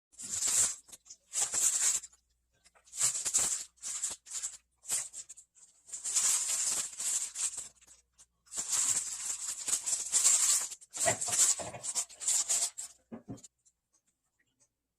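Repeated bursts of rattling, rustling handling noise, each from under a second to about two seconds long with short gaps, ending about thirteen and a half seconds in.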